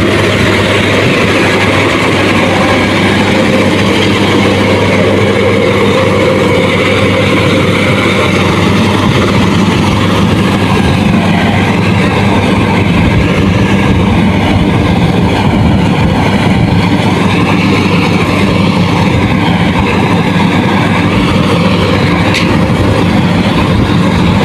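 Rice harvester's engine running steadily: a constant, unbroken machine drone.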